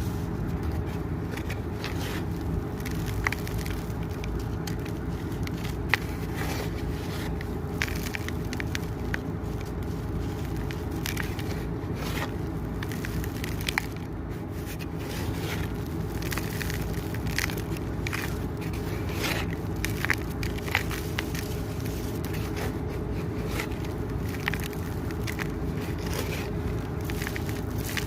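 Dry crumbled cement pouring and crunching. A steady low rush carries dense small crackles, with a few sharper cracks now and then.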